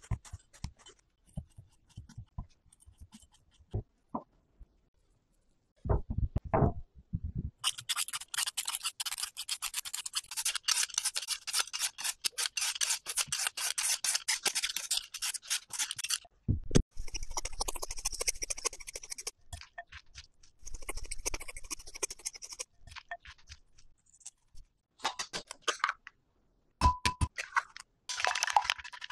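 Julienne peeler shredding a raw potato into strips on a wooden cutting board: fast, continuous rasping strokes for about eight seconds, after some scattered light taps, then two shorter spells of the same rasping. Near the end an egg is cracked against a glass bowl and beaten with chopsticks.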